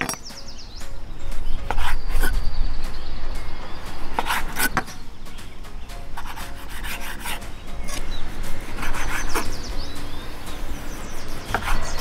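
Chef's knife cutting raw meat into chunks on a wooden cutting board: scraping slicing strokes with knocks of the blade on the board, in bursts every two to three seconds.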